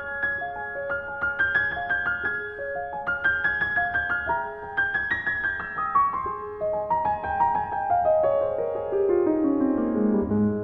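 Solo grand piano playing flowing broken-chord figures, then a long run of notes falling steadily in pitch about two-thirds of the way through, landing on a low note near the end.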